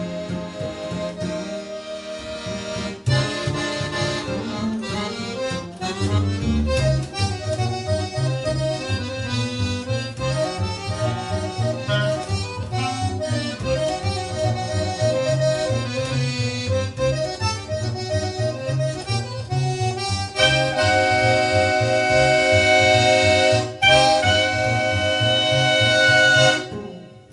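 Live instrumental music led by an accordion over a steady plucked bass line. About twenty seconds in the accordion moves to long held chords, which cut off just before the end.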